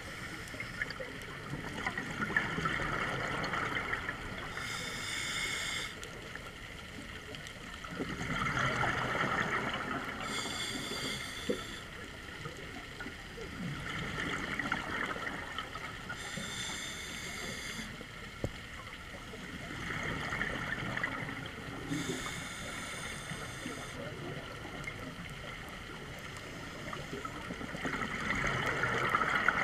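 Scuba regulator breathing underwater: a short hiss on each inhale and a longer burst of bubbling on each exhale, about one breath every six seconds.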